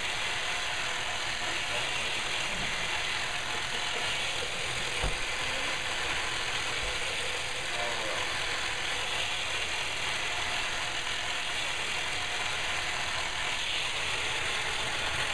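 Electric massage device used in chiropractic prep running steadily with an even mechanical whirr, with one brief low knock about five seconds in.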